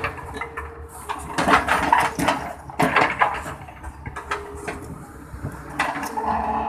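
Hydraulic excavator's diesel engine running steadily while the bucket digs, with a burst of metallic clanking and scraping through soil and stones for a couple of seconds early on.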